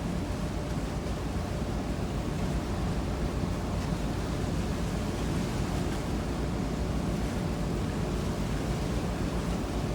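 Steady rushing noise of wind and water, heaviest in the low end, with no distinct events.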